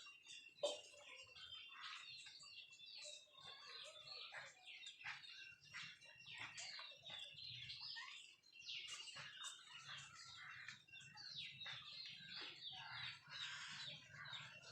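Faint, dense high-pitched chirping and peeping from a flock of country chickens (nattu kozhi) feeding, with many short calls overlapping. A sharp click comes about half a second in.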